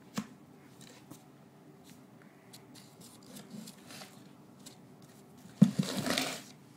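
A cat moving about in a box: a few faint clicks and taps, then about a second of scratchy rustling with several thumps near the end.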